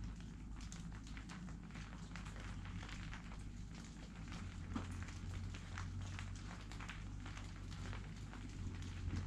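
Scattered raindrops pattering irregularly on leaves, with wind rumbling on the microphone underneath.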